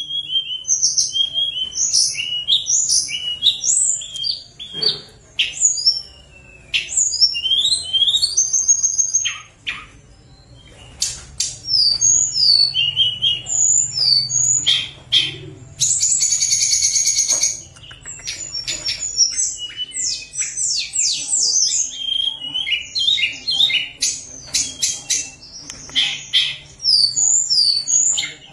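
Caged tledekan gunung singing a long, varied song of quick high chirps and sliding whistles, with a harsh buzzing rattle about halfway through.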